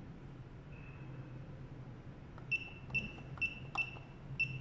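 Garage door keypad beeping as its buttons are pressed. A faint longer tone comes about a second in, then five short high beeps, each with a button click, follow in quick succession over the last two seconds.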